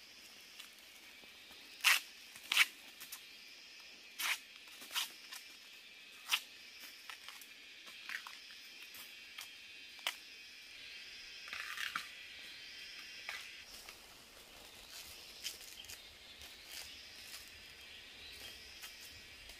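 Irregular sharp snaps and cracks of dry vegetation, about a dozen spread out, the loudest two about two seconds in, over a faint steady high-pitched drone.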